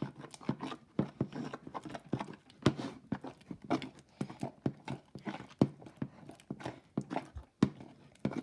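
Sticky glue-based slime being mixed and squished, making many irregular wet clicks and pops.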